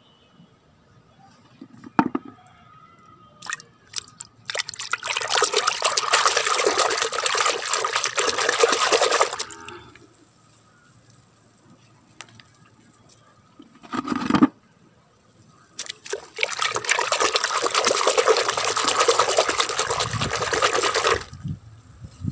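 Water splashing and sloshing in a plastic bucket as plastic toy animals are swished and rubbed by hand in soapy water, in two long bouts of several seconds each. A few short knocks come between the bouts.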